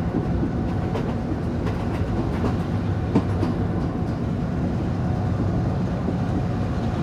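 Express train hauled by a Class M6 diesel locomotive, running at speed and heard from inside a passenger coach: a steady rumble, with the wheels clicking over rail joints a few times in the first half.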